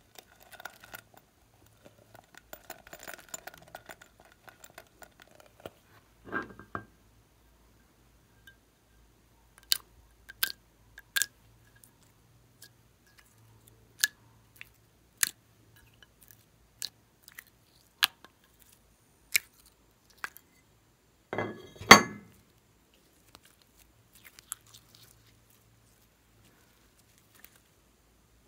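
Glossy slime being peeled and stretched off a plastic mold by hand: sharp sticky clicks and pops about once a second, then one loud squelch about two-thirds of the way through. At the start, light crackling as small plastic bits and sprinkles pour from a bag into glue.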